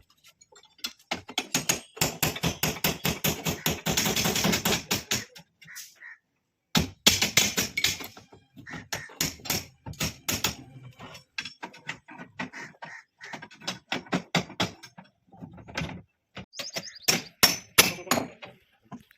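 Hand-tool work on a building site: a rapid run of sharp knocks and taps, then scattered single knocks at uneven spacing, like hammering on formwork or rebar.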